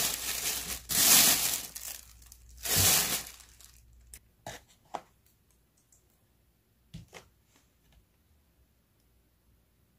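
Plastic bag crinkling as it is pulled off and bunched up, in three loud rustling surges, followed by a few light taps and clicks as a plastic basket and towel are handled.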